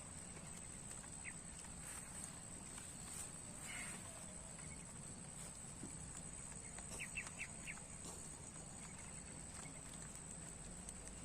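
Faint outdoor ambience: a steady high-pitched whine over a low background hum, with a quick run of four short chirps about seven seconds in.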